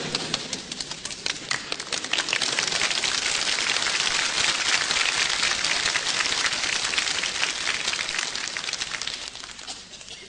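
Audience applauding: a dense patter of many hands clapping that fades away near the end.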